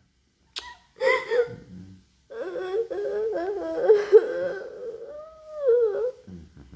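A young girl crying in grief over her pet cat's death: a short sob about a second in, then a long, wavering wail lasting several seconds.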